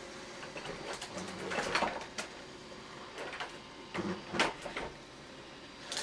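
Roborock S5 Max robot vacuum moving on its own: small motors whirring in short stop-start bursts with clicks, the loudest about a second and a half in and again about four seconds in.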